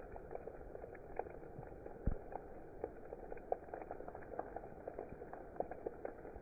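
Steady rain, with many separate drops ticking sharply on a hard surface over the wash of rainfall, and one duller low knock about two seconds in.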